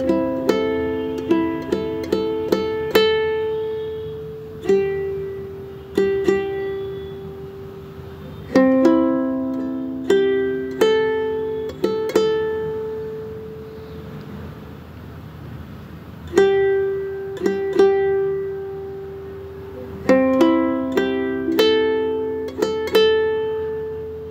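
Background music: a slow melody on a plucked string instrument, single notes ringing and fading, played in short phrases with pauses between them.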